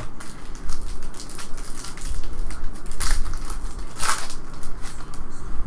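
Foil wrapper of an Upper Deck Artifacts hockey card pack crinkling and crackling as it is handled and torn open, with two louder bursts about three and four seconds in.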